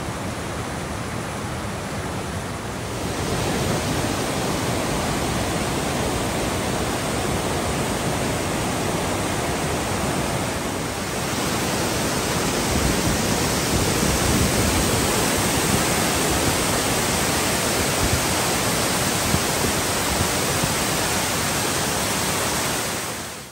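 Rushing white water of Amicalola Falls and the creek cascading below it: a loud, steady rush that steps up in level about 3 and 11 seconds in.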